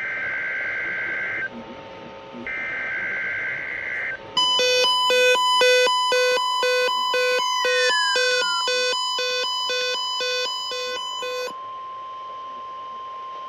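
NOAA Weather Radio SAME alert signal for a required weekly test: two bursts of buzzy digital header data about a second apart, then loud electronic alarm beeping at about two beeps a second with falling sweeps, over a steady high tone that carries on alone after the beeping stops.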